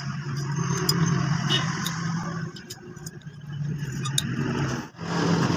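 Motorcycle engine running, its level rising and falling, softer in the middle, with a brief sharp drop about five seconds in.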